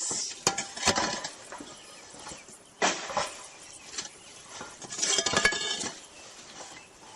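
Roof tiles being lifted and knocked together: three bouts of clinking and scraping, near the start, about three seconds in and about five seconds in.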